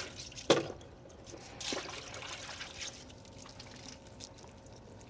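Small metal shock parts being handled on a workbench: a sharp click about half a second in, a brief rustle a second later, then faint light ticks.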